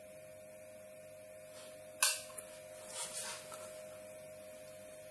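A steady electrical hum with one sharp click about two seconds in and a softer rattle about a second later, small handling noises of bench work.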